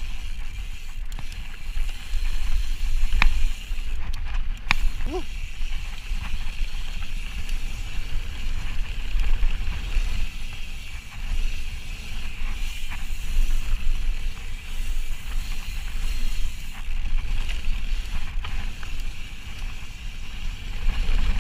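Ibis Ripley mountain bike riding fast down a dirt trail: wind buffeting the microphone as a steady low rumble, over the hiss of tyres rolling on packed dirt, with a few sharp clicks and rattles from the bike.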